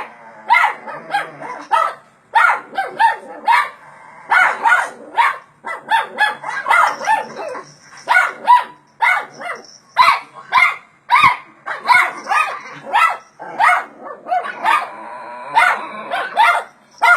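Shih Tzu barking agitatedly in quick runs of short barks, with brief pauses between the runs.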